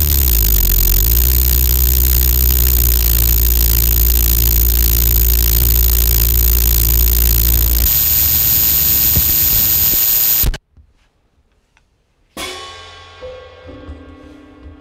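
Experimental electronic noise music: a loud, dense noisy wall with a deep bass drone that cuts off suddenly about two-thirds through. After a short silence, a single ringing hit slowly dies away, with a few quieter tones after it.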